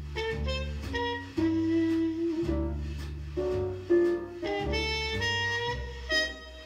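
A small jazz group's recording played back through a hi-fi: a record on the turntable, the single-ended 2A3 Loftin-White tube amplifier and JBL 4312D monitor speakers, heard in the room. Pitched melody notes ride over a steady stepping bass line.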